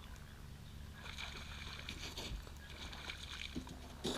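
Muffled low rumble with faint scratching and crackling, picked up by a GoPro action camera lying where it fell after dropping off its mount.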